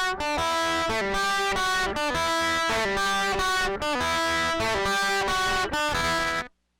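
Intro music: an electric guitar playing a run of sustained notes, cutting off abruptly near the end.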